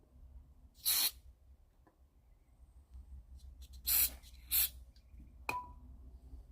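Short bursts of aerosol carburetor cleaner being sprayed into a lawnmower carburetor: one short hiss about a second in, then two close together about four seconds in. A sharp metallic click follows a second later.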